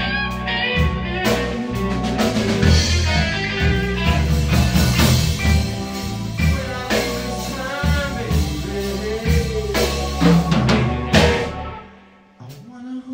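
Live band of electric guitar, electronic keyboard and drum kit playing a blues number, with busy drumming. Near the end the band stops together on a final hit and the sound falls away.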